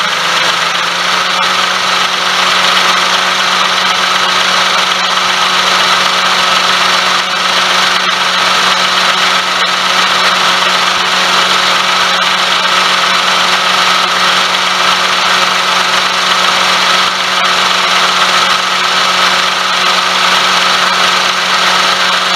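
Daihatsu Tanto (L375S) engine running with the air conditioning on, making a loud, steady noise with a constant tone over a hiss. The uploader traced this noise to a worn pulley bearing.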